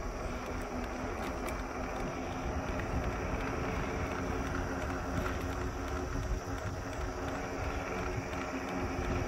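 E-bike rolling along a paved road: steady wind rush on the microphone and tyre noise, with a faint steady hum underneath.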